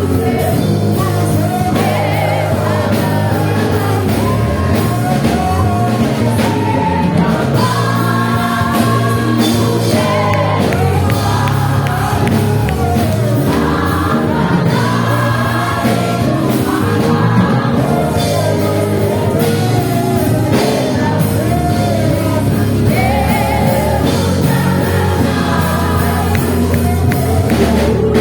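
Live gospel worship music: singers with a band, a steady bass line and drums.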